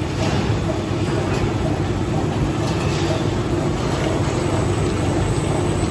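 Binbao SCA4-1 A4 copy-paper sheet cutting machine running, a loud, steady mechanical noise as paper feeds through its slitters and cutter.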